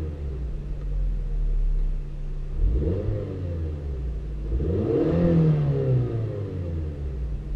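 Stock VW Golf 4 2.0-litre four-cylinder petrol engine idling, then revved twice: the pitch climbs and falls back to idle about three seconds in and again about five seconds in.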